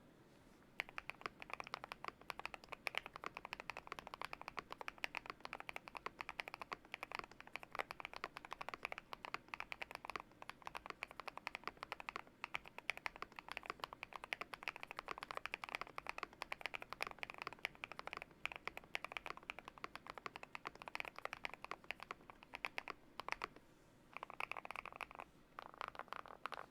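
GMK67 custom mechanical keyboard with lubed BSUN X switches and a foam- and tape-modded case being typed on quickly, a dense run of key clacks starting about a second in, with a couple of short pauses near the end.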